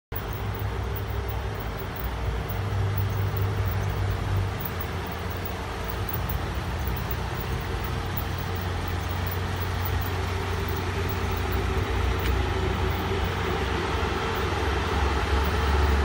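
2005 Toyota Hilux ute idling while parked: a steady low engine hum with a constant higher drone over it.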